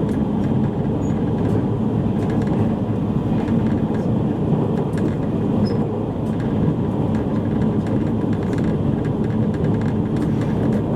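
Steady running noise inside a JR East E653 series electric train car at speed: an even rumble of wheels on rails with faint scattered ticks.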